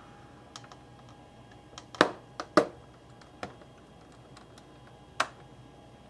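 A few separate sharp clicks, irregularly spaced, with the loudest about two seconds in, half a second later, and near the end, from a hand ratchet with a flathead bit being worked on a tight case screw.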